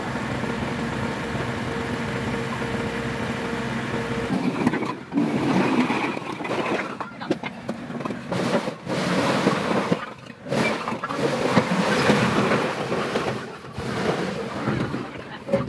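Tractor engine running steadily. About four and a half seconds in it gives way to loud, irregular noise with short gaps.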